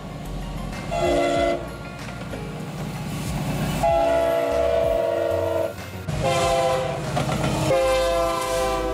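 Freight diesel locomotive's multi-note air horn sounding repeated blasts for a grade crossing: a short blast about a second in, a long one in the middle, then two more near the end. The locomotive's engine and train rumble run underneath.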